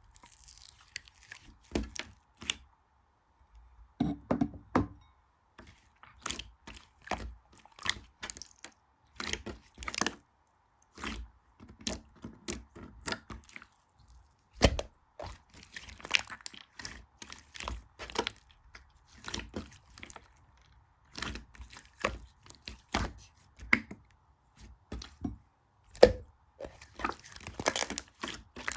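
Slime being squeezed and stretched by hand, with irregular sharp clicks and crackles as it pops and tears.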